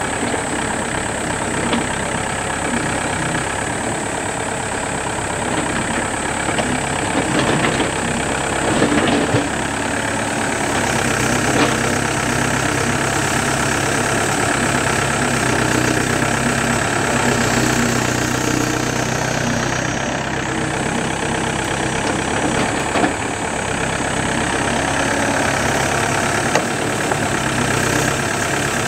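Yanmar B7 hydraulic excavator's diesel engine running steadily while the machine digs earth with its bucket, the engine note growing stronger about a third of the way in. A few short knocks and clanks from the digging break through the engine sound.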